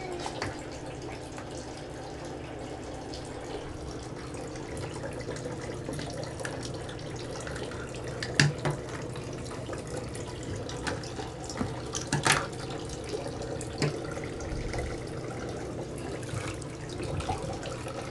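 Water running steadily from a bath toy's spout into a bathtub, with a low steady hum under it. A few sharp splashes come through, the loudest about eight and twelve seconds in.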